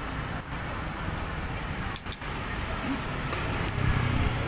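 Fish grilling over a charcoal fire: a steady hiss and crackle with a few faint short pops, over a low background rumble and some faint voices.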